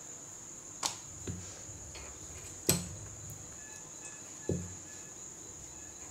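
A wooden rolling pin and dough knocking and thudding on a marble slab while dough is rolled out thin: four sharp knocks in about four seconds. A steady high-pitched whine runs underneath.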